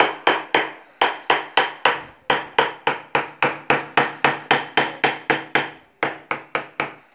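Wooden mallet striking a carving chisel to cut a flower outline into a wooden block: a steady run of sharp taps, about three a second, with a few short pauses.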